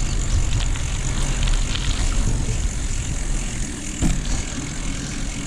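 Wind rumbling on the microphone and tyre noise from a bicycle being ridden, steady throughout, with a single sharp knock about four seconds in.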